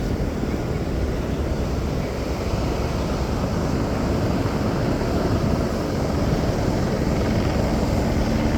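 Steady low rumbling noise of wind buffeting the microphone over heavy surf breaking on the beach. A low steady hum joins near the end.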